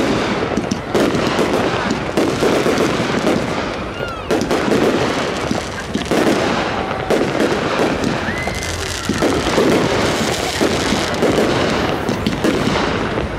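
Fireworks display: a continuous barrage of aerial shell bursts and crackling, with a couple of short whistling glides about four and eight seconds in.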